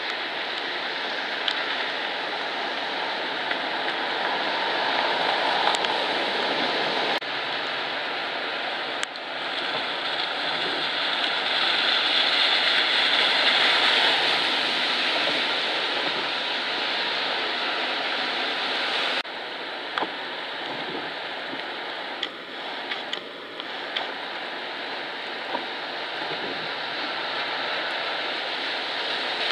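Steady rushing of the Snoqualmie River in flood: fast, high water running bank-full. The level steps up and down abruptly a few times.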